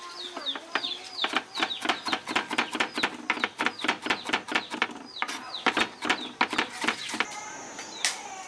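Chickens clucking and chicks peeping in many short downward-sliding cheeps, among a steady stream of sharp clicks and taps. A steady high whine joins about seven seconds in.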